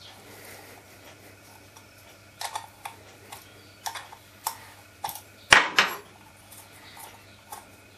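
Light metallic clicks and clinks of a 7/16 ring spanner working the float bowl bolt of a Briggs and Stratton carburettor loose. About five and a half seconds in comes a louder clatter as the spanner is laid down on a wooden table.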